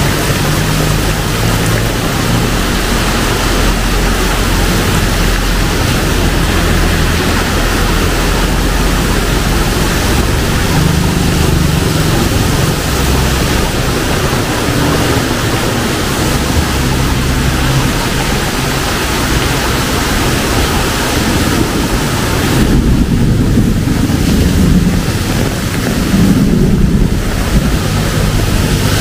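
Heavy tropical rain pouring steadily, a loud, dense hiss, with a low rumbling that comes and goes; the hiss thins for a few seconds near the end while the rumble swells.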